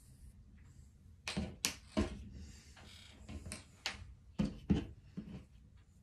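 Handling noise from tying thread around a bundle of cord on a tabletop: a series of about eight short, irregular knocks and rustles.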